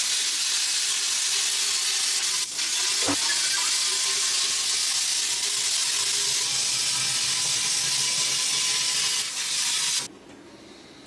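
Plasma cutter cutting through the thin steel of an air compressor tank with a steady, loud hiss. It breaks briefly with a click about two to three seconds in, then stops about ten seconds in.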